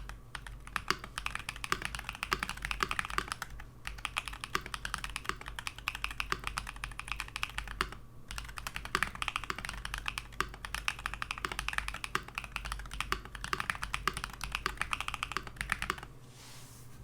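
Fast, continuous typing on a mechanical keyboard with Harimau tactile switches (long springs), a dense patter of key strikes broken by two brief pauses and ending about a second before the end.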